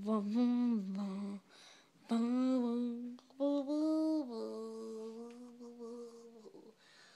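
A person humming a slow tune in three phrases of held notes that step up and down in pitch, the last phrase the longest.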